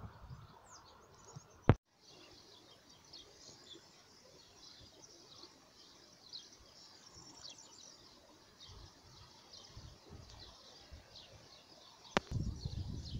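Many small birds chirping and twittering, a dense scatter of short high calls over faint steady background noise. There is a sharp click early on, and near the end another click and a burst of low rumbling noise.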